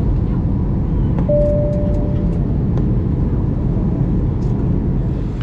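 Steady low rumble and rush of a jet airliner in flight, heard from inside the cabin. A single short tone sounds about a second in.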